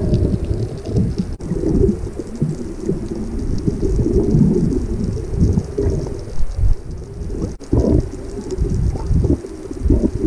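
Muffled underwater rumble and gurgling of water moving against a submerged camera as it is swept through the sea, dull and bass-heavy with irregular surges.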